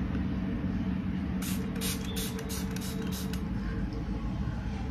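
Hand-pump mist spray bottle spritzing rice water onto a face: a quick run of about six short hissing sprays about a second and a half in, over a steady low background hum.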